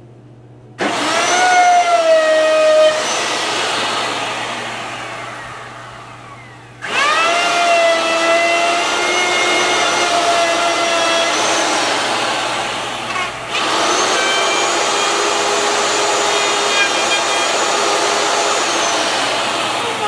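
Handheld electric router switched on about a second in, whining at a high steady pitch, then winding down. It starts again about 7 s in, cuts out briefly near 13.5 s and runs on, cutting paths in an occupied observation beehive.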